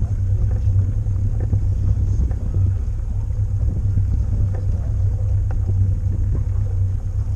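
Steady low rumble of a pontoon boat under way, its motor running beneath wind on the microphone, with a few faint knocks.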